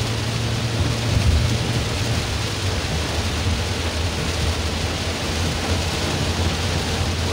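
Heavy rain pelting a car's roof and windshield, heard from inside the cabin as a steady dense hiss, over the low, even rumble of the car driving along the highway.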